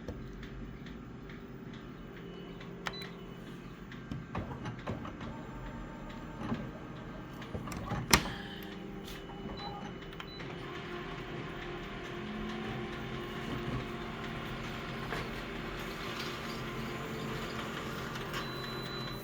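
Photocopier running while making a copy: a steady hum, a sharp click about eight seconds in, then a louder, steady mechanical run from about ten seconds on.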